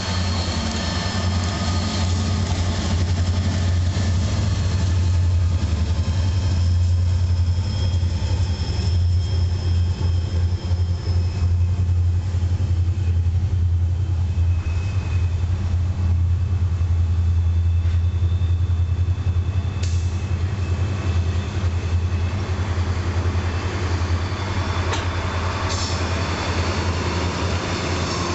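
A freight train rolling past: Soo Line diesel locomotives, then a long string of loaded open-top hopper cars, with a steady low rumble of engines and wheels on rail. A few brief sharp squeaks come in the second half.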